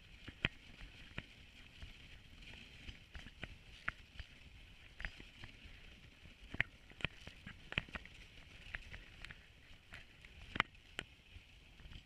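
Dog sled running over a packed snow trail: a steady hiss of the runners on snow, with frequent irregular clicks and knocks from the sled as it bumps along.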